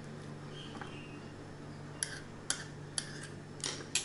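A kitchen knife clicking and tapping against a glass jar and the tabletop, four or five sharp taps in the second half, as banana is sliced into the jar and the knife is put down. A steady low hum lies underneath.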